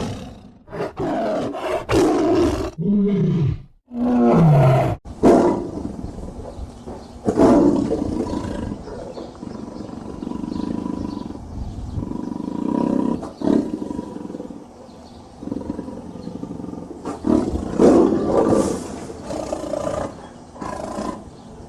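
Tigers roaring and growling: a run of separate loud calls, a couple of them gliding down in pitch a few seconds in.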